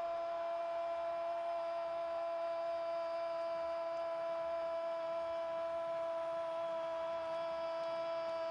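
A sports commentator's long, held goal cry, "¡Goooool!", kept on one steady pitch throughout.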